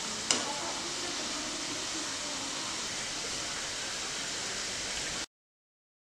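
Namak pare dough pieces deep-frying in hot oil in a wok, a steady sizzle, with a single click of a metal skimmer against the pan just after the start. The sizzle cuts off suddenly about five seconds in.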